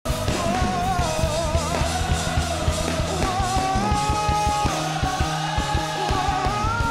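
Live gospel church band playing a steady drum beat and bass under a held, wavering melody line.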